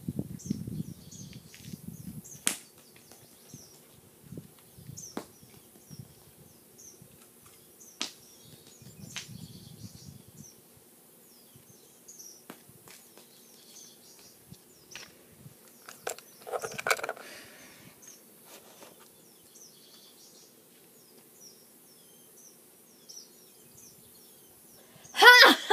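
Outdoor yard ambience with faint bird chirps, scattered sharp clicks and crunching of movement on gravel. A short pitched call comes in the middle, and near the end a loud, high voice slides down in pitch.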